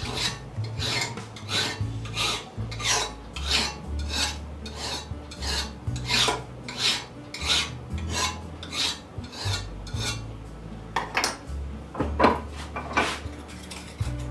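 Hand file scraping across the chisel-cut edge of a piece of steel held in a bench vise, about two strokes a second. After a short pause a few slower strokes follow and it stops near the end. The filing takes off the burrs ("fish hooks") left by the chisel work.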